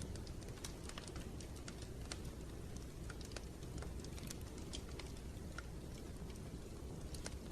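Wood fire in a fireplace crackling: irregular sharp pops and snaps, several a second, over a steady low rumble of the flames.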